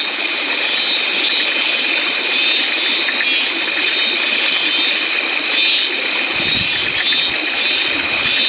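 Floodwater running steadily, a continuous rushing hiss, with a steady high-pitched chorus layered over it.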